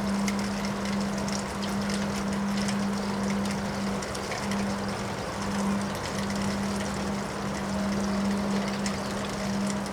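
Windstorm noise: a steady rush of wind with scattered small rattles and crackles, over a constant low hum.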